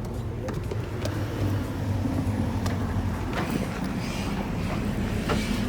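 Bus engine running steadily, heard from inside the cabin as a low hum, with a few light rattles.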